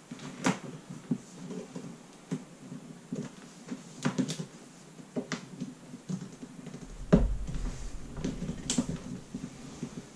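Clicks, knocks and rustles of an Avid Carp Quick Up Session Organiser being handled and folded down, with one heavier thump about seven seconds in.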